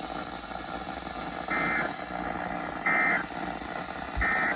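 Emergency Alert System end-of-message code: three short, identical, high-pitched warbling data bursts about 1.3 s apart over steady radio hiss. The bursts mark the end of the alert.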